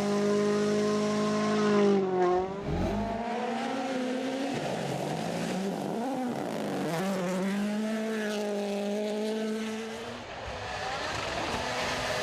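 Rally car engine running hard at speed, its pitch holding high, dropping sharply about two seconds in as the driver lifts or shifts, then rising and wavering through gear changes before holding high again.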